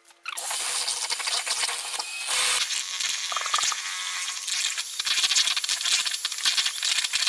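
Electric hand mixer running, its twin beaters whisking cold milk and whipped-cream powder in a plastic bowl as the mixture whips up into thick cream. It switches on just after the start and runs steadily.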